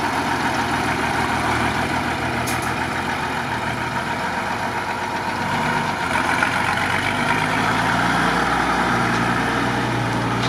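Mercedes-Benz Unimog truck's engine running at low revs as the truck drives off the concrete slabs, picking up a little about six seconds in.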